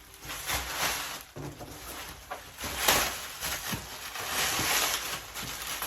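Packaging being handled during an unboxing: irregular rustling and scraping bursts, the loudest about three seconds in.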